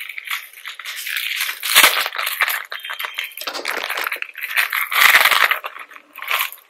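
Plastic chain-link lanyard being worked off its cardboard display card: crinkling and rustling of the card mixed with the rattle and clicking of the plastic links.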